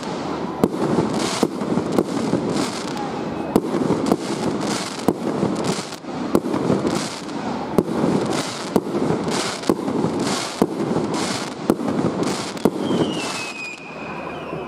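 A firework display: more than a dozen sharp bangs from shells bursting, one or two a second, over the rushing crackle of the stars. Near the end comes a short falling whistle.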